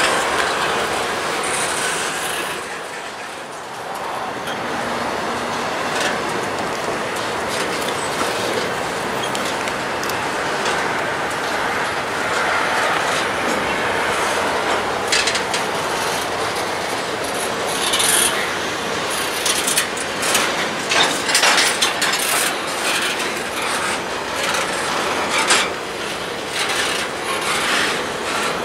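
Intermodal freight train of container well cars and trailer flatcars rolling past close by, its steel wheels running on the rails in a steady noise. There is a brief dip about three seconds in, and sharp clicks and clanks come more and more often in the second half.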